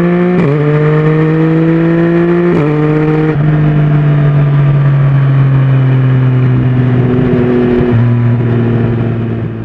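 Yamaha Tracer 900's three-cylinder engine through a Mivv titanium exhaust, accelerating through the gears with quick upshifts: the pitch climbs and drops sharply about half a second in and again around two and a half seconds. It then runs steadily with the pitch slowly falling, drops once more near the end, and fades out.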